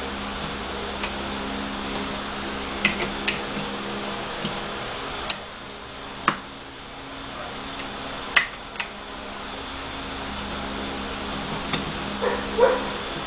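Steady fan-like hum with sharp metallic clicks and light taps scattered through it, the loudest about six and eight and a half seconds in: small rifle parts being handled during reassembly.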